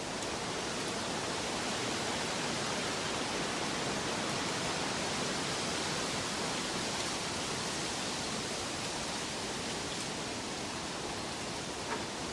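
Steady rushing water, a continuous even hiss with no distinct splashes or drops, and one faint click near the end.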